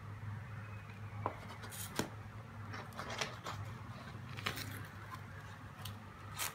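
Cardboard gift box being handled and its lid lifted off: several sharp clicks and short scrapes of card against card, over a steady low hum.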